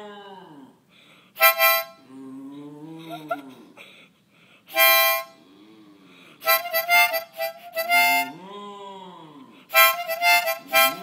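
A harmonica plays short loud blasts and chords, and between them a small dog answers with drawn-out, moo-like howls that rise and fall in pitch. The dog howls at the start, again for a couple of seconds around two to four seconds in, and once more after the harmonica, about eight seconds in.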